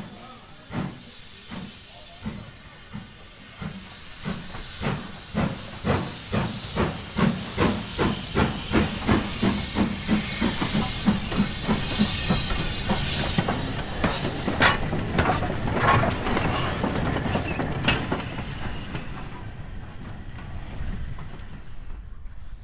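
BR Standard Class 4MT steam locomotive 76079 pulling away: its exhaust beats quicken from slow, separate chuffs to about three or four a second, with the hiss of open cylinder drain cocks, loudest about halfway through. The beats then fade as it moves off.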